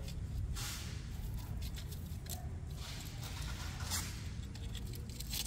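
Hands tying an orchid onto a tree-fern trunk with string: scattered rustling and scratching as the string, roots and fibrous fern are handled, over a steady low rumble.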